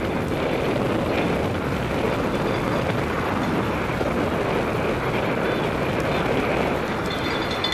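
Steady rushing noise of a cyclocross bike ridden fast over a grass course: wind buffeting the onboard camera's microphone, mixed with the rumble and rattle of tyres and bike on the rough turf.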